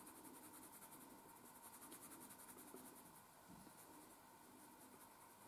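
Faint scratching of a coloured pencil on paper as it shades.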